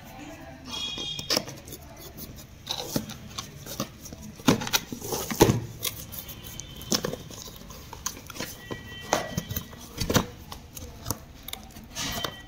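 Cardboard packaging handled by hand: irregular scrapes, taps and knocks as the inner box's tuck flap is worked open and the lid lifted, with several sharper knocks between.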